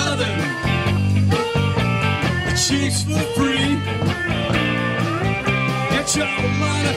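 Live blues-rock band playing an instrumental stretch: electric guitars over bass and drums, with a steady drum beat.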